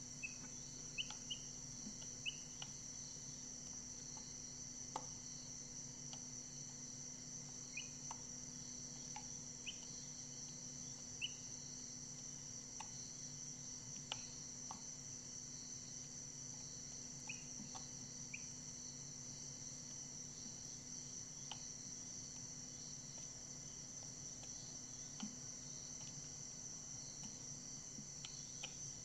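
A steady, high-pitched chorus of crickets, with scattered short peeps from Brahma chicks and a few light ticks.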